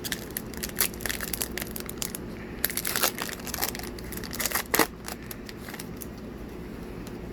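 Plastic foil wrapper of a Magic: The Gathering booster pack crinkling and tearing as it is ripped open, with a run of sharp crackles that is loudest in the middle and dies away after about five seconds.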